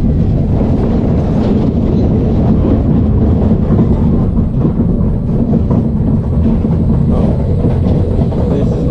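SBF Visa spinning coaster car running along its steel track: a loud, steady rumble of the wheels on the rails with a light clatter.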